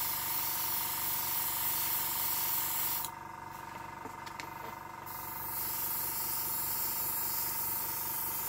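FA-180X airbrush spraying thinned acrylic paint, a steady hiss of air. The hiss stops about three seconds in, a few light clicks follow, and it starts again about two seconds later.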